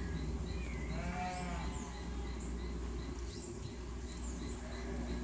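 Outdoor background sound: a steady low rumble under a faint high chirp that repeats about three times a second, with a short animal call rising and falling in pitch about a second in.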